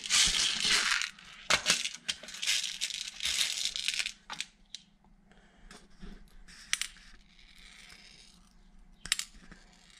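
Loose 1/8-inch steel ball bearings clinking and rattling in a small metal tray as fingers pick through them, with single sharp clicks as balls are set into a greased bearing race. The rattling is busiest for about the first four seconds, then only a few separate clicks follow.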